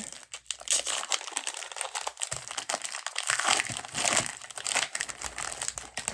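Foil wrapper of a Donruss basketball trading-card pack being torn open and crinkled: a dense, continuous crackling.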